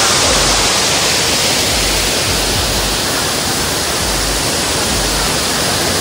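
Waterfall water rushing and splashing over rocks, a loud, steady hiss close to the microphone.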